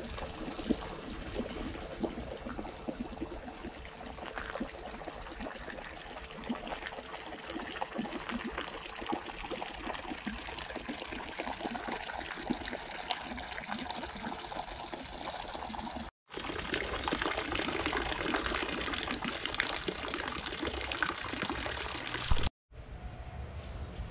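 Fountain water splashing and trickling steadily into a stone basin, with two brief gaps where the sound drops out.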